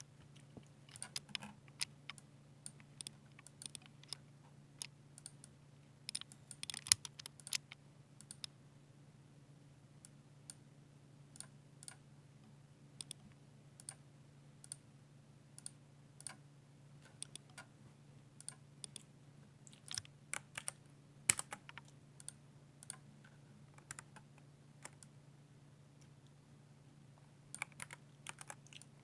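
Typing on a Ducky 60% mechanical keyboard with silver switches: quick flurries of key clacks with sparser single keystrokes between them. A faint steady low hum runs underneath.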